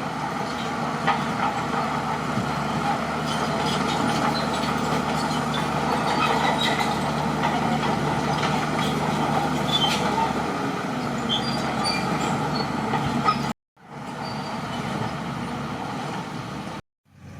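Crawler bulldozer's diesel engine running steadily under load, with scattered metallic clinks from the machine as it pushes dirt. The sound drops out abruptly twice near the end.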